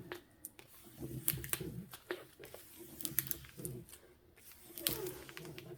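Diamond-painting canvas with its plastic cover being handled and smoothed flat with a plastic scraper, crinkling and rustling with scattered small clicks.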